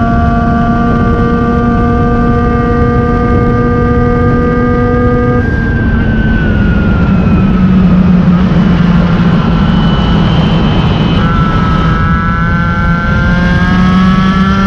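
MBK 51 moped's 50cc two-stroke single-cylinder engine running hard under way, with wind rushing over the microphone. The engine note holds steady, drops in pitch about five seconds in as the revs fall, and climbs again in the last few seconds.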